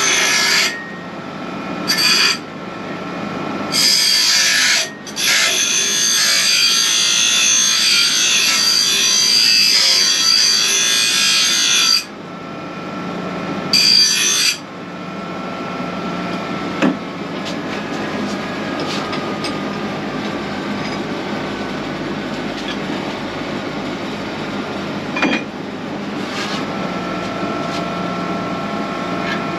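Angle grinder grinding steel frame rail, the loud grinding starting and stopping sharply in several bursts during the first half. It then runs steadier and a little quieter, with the grinder's whine underneath and scattered ticks.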